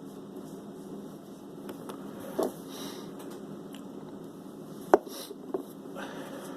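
A few small clicks and taps from hand work on a speaker being reglued, the sharpest and loudest about five seconds in, over a steady low hum.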